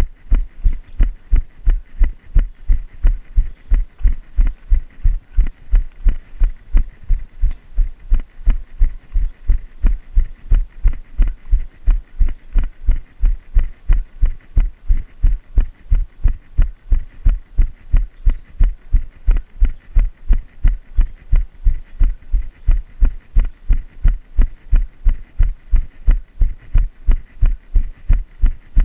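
A runner's footfalls thudding steadily on a trail, about three strides a second, heard as heavy low thumps through a body-worn action camera.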